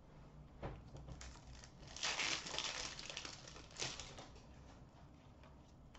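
Trading cards being handled and flipped through by hand: light rustling and sliding of card stock, densest about two seconds in, with a few soft clicks.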